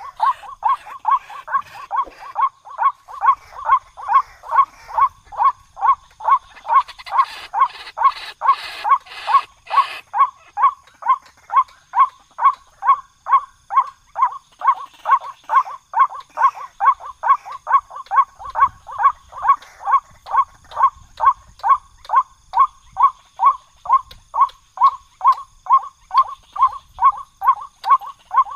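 White-breasted waterhen calling, a short note repeated evenly about twice a second without a break. A hissing rustle joins in for about three seconds a quarter of the way in.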